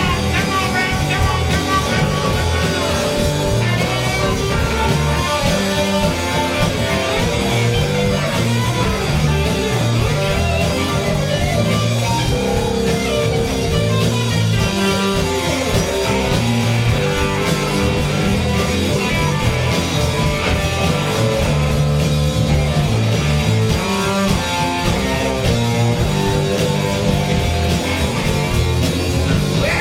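Rock band playing live, with guitar to the fore over bass and drum kit, running on without a break.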